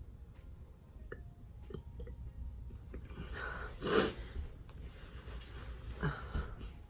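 Two sudden, breathy heaves from a person's throat and mouth, the louder one about four seconds in and a weaker one about six seconds in, from someone nauseated and close to vomiting.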